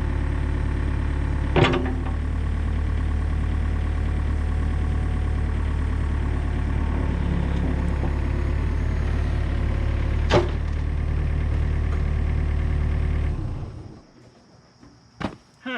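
Komatsu PC40 mini excavator's diesel engine running steadily, with two sharp metal clanks, one about a second and a half in and one about ten seconds in. Near the end the engine shuts off, leaving a couple of faint clicks.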